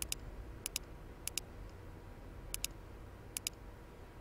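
Computer mouse button clicked five times at uneven intervals, each click a quick pair of sharp snaps, over a low steady background hum.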